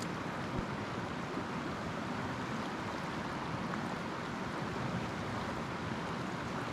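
Fast mountain river rushing steadily over a rocky riffle.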